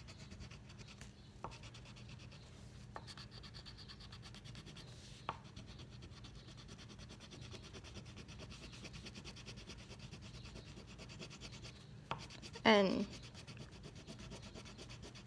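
Coloring on a coloring-book page: steady soft rubbing and scratching of the strokes on paper, with a few faint clicks.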